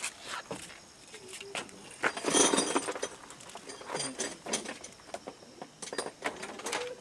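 Small metallic clicks and clinks of a break-action dart gun being handled while a syringe dart is loaded into it, with a louder burst of rattling about two seconds in and a few more clicks later.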